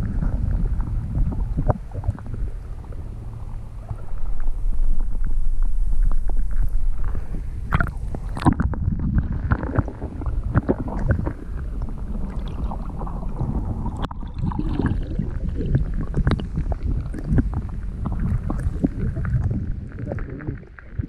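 Wind rumbling on the microphone, louder for a few seconds about four seconds in, with scattered knocks and scuffs.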